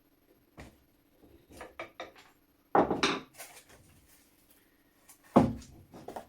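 Knocks and clatters of tools and the wooden-stocked shotgun being handled and struck on a workbench, a few light taps followed by two louder knocks about three and five and a half seconds in.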